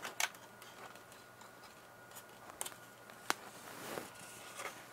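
A few scattered small clicks and snaps from a plastic loop-antenna housing being pried apart by hand, the sharpest one a little past three seconds in. It is the seam giving way, which the repairer takes for an ultrasonic weld.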